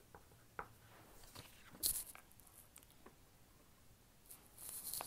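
A few light clicks and taps, then a sheet of paper rustling and crinkling as it is handled and slid into place near the end.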